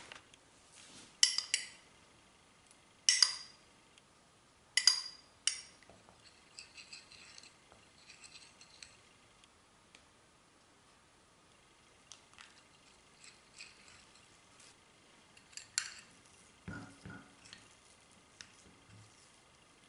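Metal spoon striking a ceramic bowl with several sharp, ringing clinks, then lighter scraping and ticking as matcha powder and hot water are stirred into a paste. A few dull knocks near the end.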